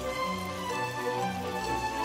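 Background music: a light melody of held notes.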